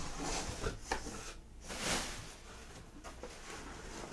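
Cardboard packaging being handled and shifted: a few light knocks, then a soft scraping rustle about two seconds in.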